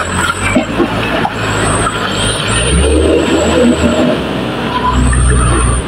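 Light truck's engine labouring at high load as the truck drags itself through deep mud ruts. It runs as a steady low rumble that swells in the middle and again near the end, with a thin high whine coming and going over it.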